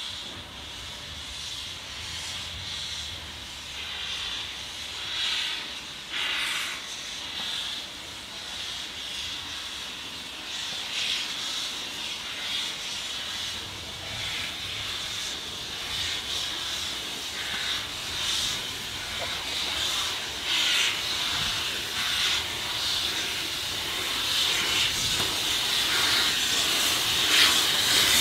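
Metre-gauge 2-10-2T steam locomotive 99 7247-2 hissing steam from its open cylinder drain cocks as it moves slowly off, with irregular surges in the hiss. It grows steadily louder as it draws closer.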